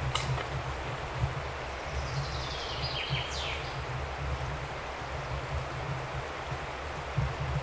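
Steady outdoor background noise with a low rumble, and a brief faint high chirp about three seconds in.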